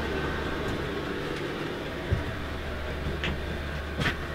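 Low steady rumble and hum with a few soft knocks, about two seconds in and again near the end, from someone walking with a handheld camera through a parked bus.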